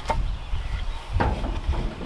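Two sharp knocks about a second apart as a wooden board is shoved into place under the stainless steel chicken plucker to keep it from rolling, over a low outdoor rumble.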